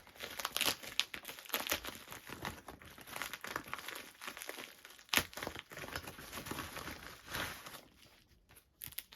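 Packaging crinkling and tearing in irregular bursts as a parcel is unwrapped by hand, with one sharp click about five seconds in; the handling quietens near the end.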